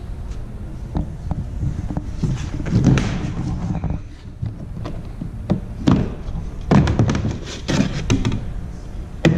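Repeated thunks and knocks of a thermoformed plastic kayak hull being handled and shifted, coming in clusters.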